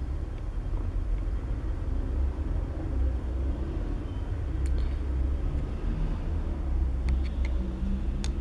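Steady low rumble in the background, with a few faint light clicks about five seconds in and again near the end.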